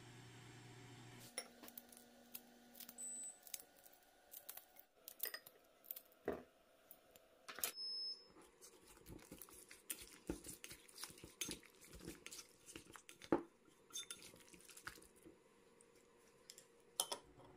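Wooden chopsticks mixing sliced raw chicken breast in a soy-sauce marinade in a ceramic bowl: irregular clicks and taps of the chopsticks against the bowl, starting about a second in.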